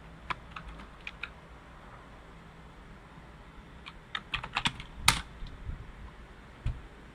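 Computer keyboard typing: a few separate keystrokes, then a quick run of keys with one harder stroke about five seconds in, as a terminal command is typed and entered. A low thump near the end.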